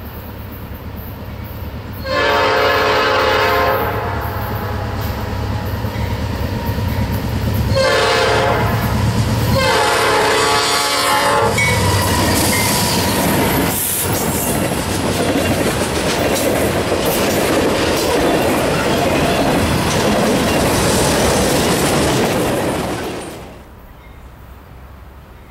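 Norfolk Southern diesel freight locomotives sounding their multi-tone air horn in three long blasts, a warning for the grade crossing. The locomotives and freight cars then pass close by with a steady rumble and wheels clacking over the rail joints, which cuts off suddenly near the end.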